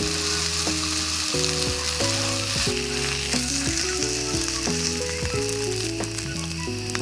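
Food frying in a pan, a steady sizzle, with background music of soft melodic notes over it.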